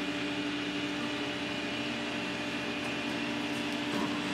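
Flatbed tow truck running: a steady mechanical hum with a constant low whine.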